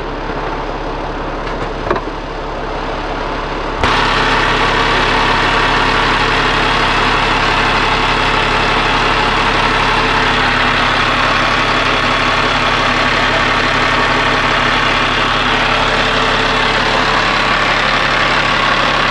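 Kenworth truck's diesel engine running steadily. About four seconds in, a loud, steady rushing noise suddenly joins it and keeps on.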